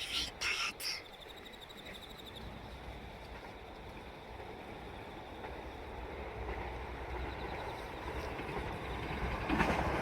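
A train approaching, its rumble swelling steadily louder over several seconds. A few short sharp sounds come in the first second.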